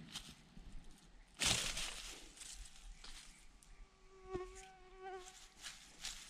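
Dry grass and leaves rustling and crackling as hands work a string snare on the ground, loudest about a second and a half in. A flying insect buzzes past briefly, in two short bursts, about four to five seconds in.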